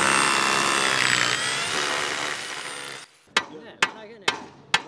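A glitchy transition sound effect, a dense hissing noise with steady tones, fades out about three seconds in. Then a hammer strikes the top of a steel pipe four times, about two blows a second, each with a short metallic ring.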